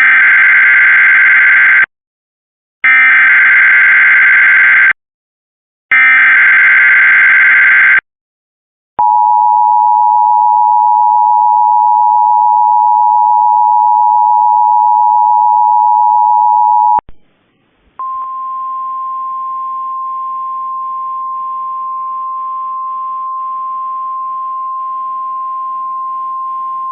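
Emergency Alert System broadcast tones. Three short bursts of the warbling SAME digital header open the alert. An eight-second two-tone attention signal follows, then about nine seconds of a single steady tone just above 1 kHz: the 1050 Hz NOAA Weather Radio warning alarm, carried on a relayed weather-radio feed with faint background hiss.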